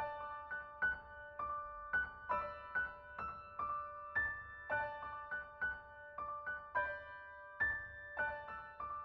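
Background music: a soft, unhurried melody of single struck notes, about two to three a second, each ringing and fading.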